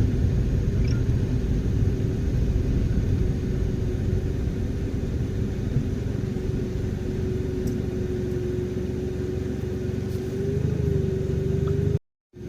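Car running: a steady low rumble of engine and road noise with a constant hum that wavers slightly near the end. The sound drops out briefly just before the end.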